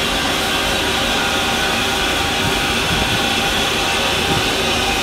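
LNER A4 Pacific steam locomotive Sir Nigel Gresley standing in steam, with a loud, steady hiss of steam escaping at the front of the engine.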